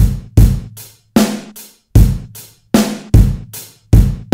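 Drum kit playing a steady slow beat: a loud kick drum with a cymbal crash on each beat, a little under a second apart, with lighter hits in between.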